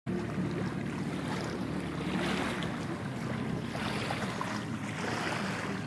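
Sea water washing along the hull of a boat under way, swelling and easing every second or two, over a steady low engine hum.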